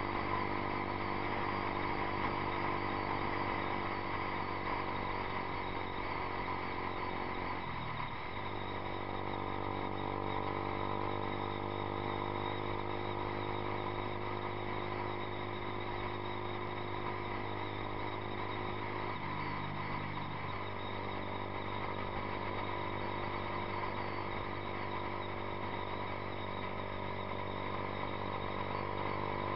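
Yamaha YZF-R15's single-cylinder four-stroke engine running through a Two Brothers Racing aftermarket exhaust, riding along at steady road speed. The engine note dips briefly about eight seconds in and shifts again around twenty seconds in.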